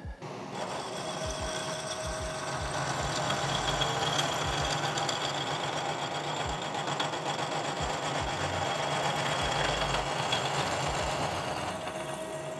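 Milling machine driving a hole saw through a bicycle frame tube to cut a miter: a steady machine hum with cutting noise that builds over the first few seconds and eases off near the end.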